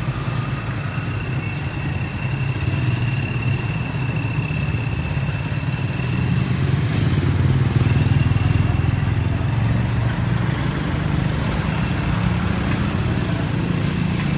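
Street traffic: motor vehicle and motorbike engines running as they pass, a steady low rumble that swells around the middle, with a thin high whine over the first several seconds.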